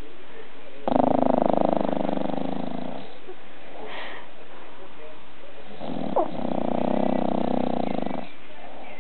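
Bulldog snoring in deep sleep, with two long snores that sound much like a human's. The first starts suddenly about a second in and fades away. The second starts about six seconds in, with a brief high rising squeak near its start.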